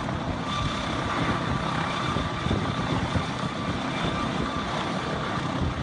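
Helicopter running close by: its engine and rotor make a steady, dense rumble, with a steady high turbine whine that comes in about half a second in.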